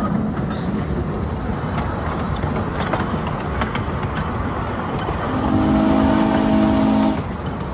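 Miniature train cars rumbling and clattering along the track, then about five seconds in the locomotive's whistle blows a chord of several notes for about two seconds, cutting off just before the end and sounding again right after.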